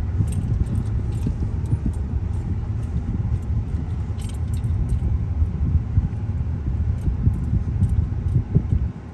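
Road and engine noise heard inside a moving car: a steady low rumble, with scattered light clicks and rattles.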